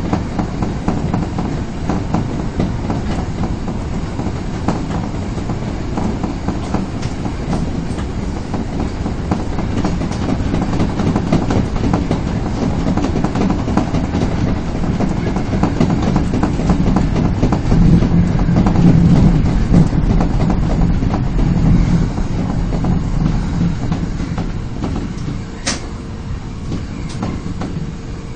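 Osaka Metro Tanimachi Line subway train running between stations, heard from inside the car: a steady rumble of wheels on rail, louder in the middle and easing near the end, where a steady whine sets in as the train slows. A single sharp click is heard about three seconds before the end.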